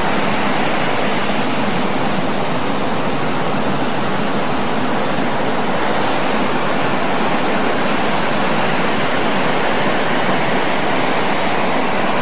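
Steady roar of breaking ocean surf, an even rushing noise that neither swells nor fades.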